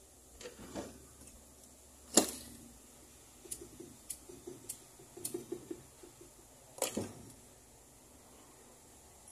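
Small metal hand tools being handled on a jeweller's workbench: a few clicks and knocks, the sharpest about two seconds in, a run of light ticks in the middle, and another knock near the end.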